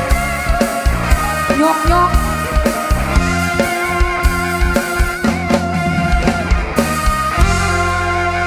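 Live band playing an instrumental passage of an upbeat lam song: a steady drum-kit beat under bass, guitar and wavering melody lines.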